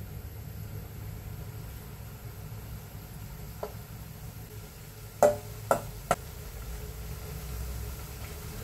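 A stainless steel mixing bowl knocking sharply against a frying pan three times about five to six seconds in, with a fainter knock a little before, as batter is emptied into the hot oil; a steady low rumble runs underneath.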